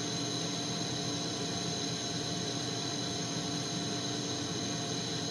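Propane-oxygen glassworking torch burning with a steady, even hiss, with a few faint steady tones underneath.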